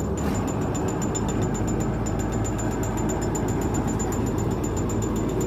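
Fishing trawler's diesel engine running steadily, a low even hum with a fast regular ticking over it.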